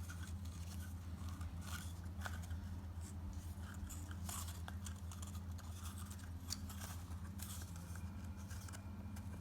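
Faint rustling and light ticks of paper craft pieces being handled and pressed onto a fibre plant pot, over a steady low hum.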